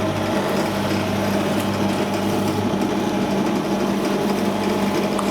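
Bench drill's electric motor running steadily, with a mechanical hum made of several constant tones. The lower drone drops away about halfway through.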